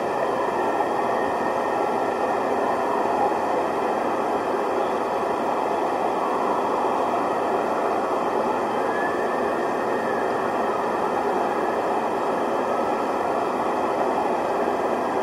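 Steady outdoor street din, with faint tones gliding up and down through it about halfway in.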